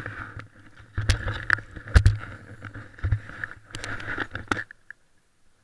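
Skis sliding and scraping over packed snow, with scattered sharp clicks and knocks of ski and pole gear, as the skier glides to a stop; the noise ends suddenly about four and a half seconds in.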